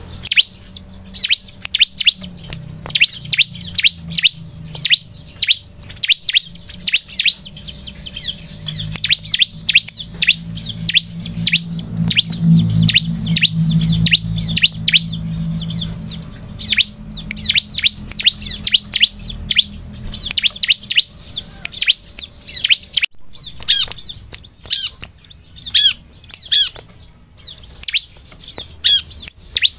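Bar-winged prinia (ciblek) calling: rapid series of high chirps that sweep downward, with a short break a little after two-thirds in. A low rumble runs underneath in the middle.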